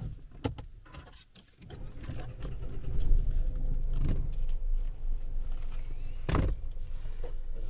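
Renault Triber setting off: a few clicks and knocks, then a low rumble of engine and road that builds up from about two seconds in and holds steady as the car drives. A single sharp knock comes near the end.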